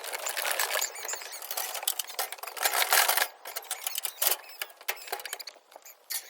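Sheep unloading from a livestock trailer: a busy run of hooves pattering and clattering on the trailer floor and ramp, with some squeaking.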